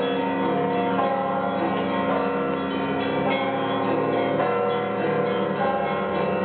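Orthodox monastery church bells being rung. Many bells of different pitches are struck in quick succession, and their tones overlap and ring on continuously.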